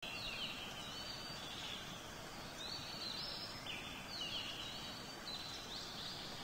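Faint birdsong: repeated high chirping calls, several in a row, over a steady outdoor background hiss.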